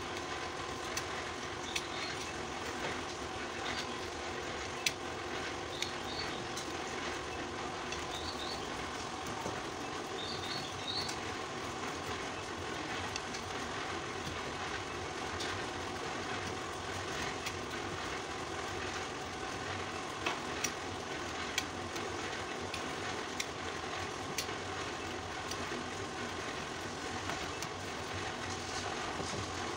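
Utility knife blade scraping and carving a bamboo birdcage rim, with occasional sharp clicks, over a steady background rumble.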